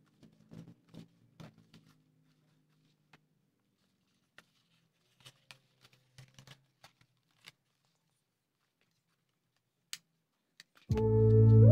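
Faint rustling and crinkling of stiff craft paper as it is pressed and shaped by hand, with a few sharp clicks. Near the end, background music with held keyboard chords starts abruptly and is loud.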